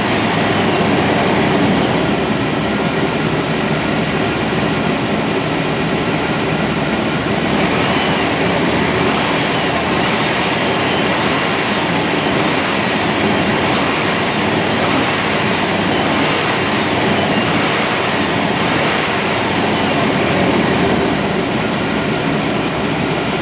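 1997 GMC 1500's 5.7L Vortec V8 engine running steadily, close up, just restarted after its clogged fuel filter was replaced.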